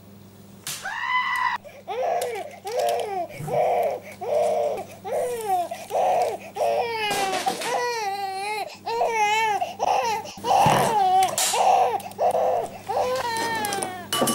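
Baby crying in a rapid string of short wails, with longer wavering cries in the middle.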